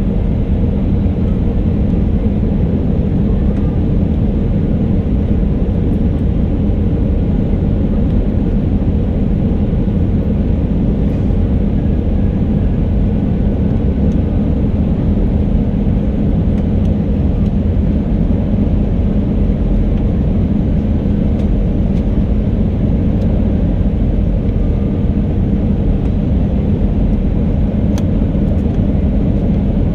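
Steady, loud cabin noise inside an Airbus A319 airliner: engine drone and rushing airflow, with a steady low hum running under it.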